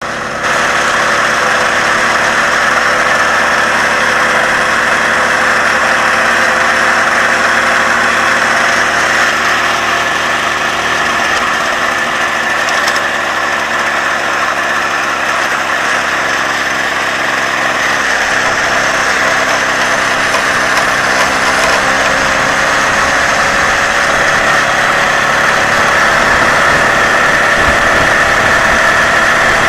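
Moped engine running steadily while riding along a road, its note rising slightly in the second half.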